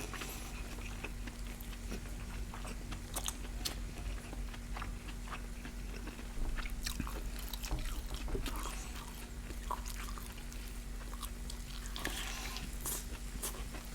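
Close-miked mouth sounds of eating: irregular wet chewing and biting clicks and smacks, over a faint steady hum.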